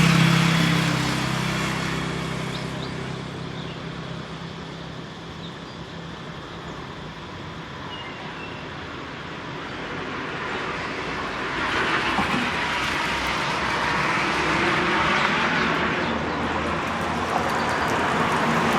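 Road traffic passing by. A vehicle's engine and tyres are loud at the start and fade away over a couple of seconds, leaving a quieter lull, then more vehicles pass with a rise of tyre and road noise from about halfway through, and again near the end.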